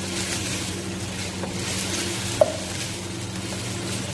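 Cubes of boneless chicken breast sizzling in hot oil with garlic in a frying pan as they are stirred, with one sharp clink of the utensil against the pan about two and a half seconds in. A steady low hum runs underneath.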